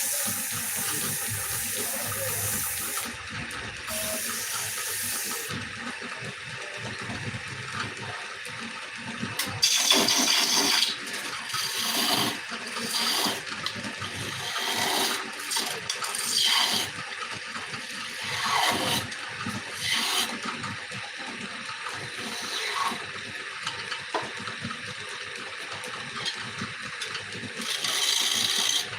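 Wood turning on a lathe: a cutting tool scraping the spinning wood in a steady rush, with louder, harsher passes several times as the tool bites in.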